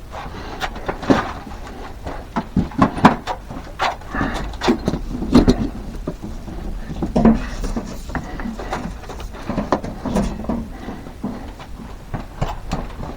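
Irregular clicks, knocks and light clatter of hands working electrical conduit and fittings, dozens of sharp taps spread through the whole stretch.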